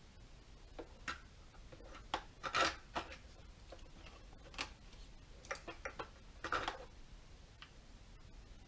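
Scattered clicks and light knocks of plastic and metal chainsaw parts being handled as the clutch cover is fitted back over the bar and chain, with a few louder clatters in the middle.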